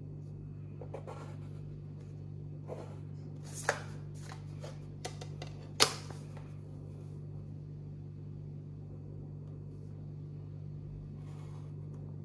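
A plastic set square and pen handled on a drawing board: scattered soft scrapes and taps, with two sharp clicks about four and six seconds in, over a steady low hum.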